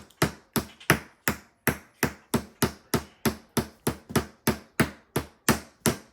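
A hammer striking a block of ice with a toy frozen inside, in quick, even blows of about three a second.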